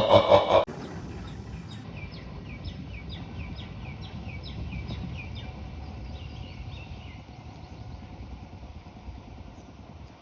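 A loud passing train cuts off abruptly just under a second in. It gives way to a quiet outdoor background: a steady low rumble with a string of short, falling bird chirps, a couple a second, for several seconds.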